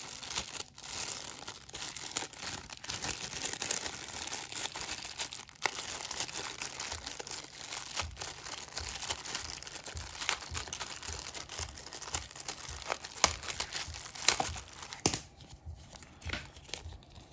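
Thin clear plastic bag crinkling and crackling in the hands as it is opened and a folded paper leaflet is pulled out of it. It goes quieter near the end, with only a few short crisp rustles.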